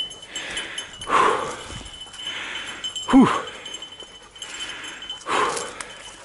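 Heavy panting breaths, with two loud exhalations about a second in and about five seconds in and fainter ones between them. A breathless "whew" comes about three seconds in, over a thin steady high whine.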